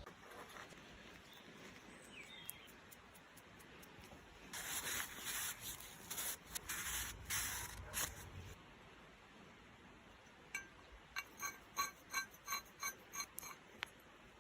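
Workshop handling sounds: a few seconds of short hissing bursts, then a quick run of light, ringing metal clinks, about three a second.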